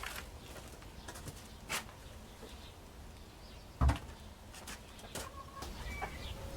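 Scattered light knocks and clicks of things being handled, with one louder thump about four seconds in; faint short bird chirps near the end.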